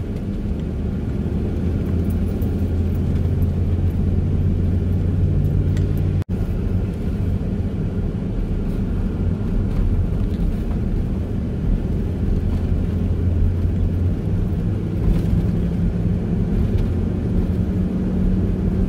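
Car engine and road noise, a steady low drone, as the car labours up a steep, rough mountain road. The engine note shifts about two-thirds of the way through, and the sound drops out briefly about six seconds in.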